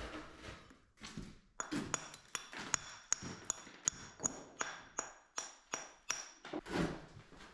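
A mason's hammer striking a hand-held fieldstone in a steady run of about a dozen ringing blows, roughly three a second, chipping the stone to shape. A duller knock follows near the end.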